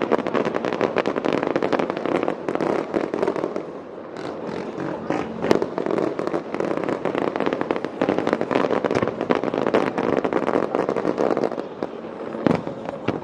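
Aerial fireworks bursting in a dense, rapid crackle, with one sharp louder bang about five and a half seconds in.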